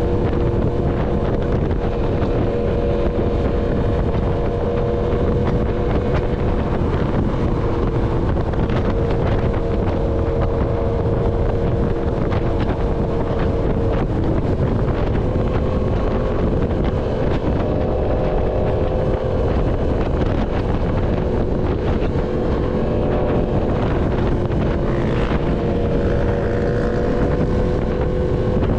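Yamaha MT-10's crossplane inline-four engine, breathing through an SC Project full-system exhaust, running at a fairly steady cruise, its note shifting only slightly with small changes in speed. Heavy wind noise on the microphone runs underneath.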